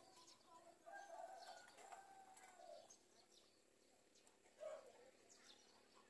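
Faint bird calls against a quiet background: a drawn-out call in the first half and a short call about four and a half seconds in.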